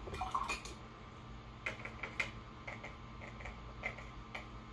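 A paintbrush tapping and clicking against a water jar and a plastic watercolor palette: a quick cluster of light clicks, then single clicks every half second or so.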